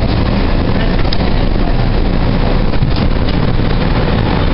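Steady rumble and hiss of a Calgary C-Train light-rail car running slowly along the street, heard from inside the car.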